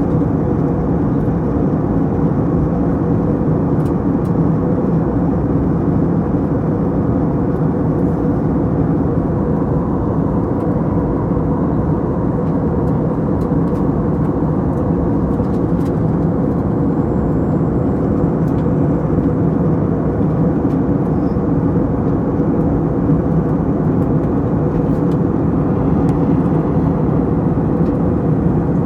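Steady jet airliner cabin noise at a window seat: a constant drone of engines and airflow with a few steady low hums underneath.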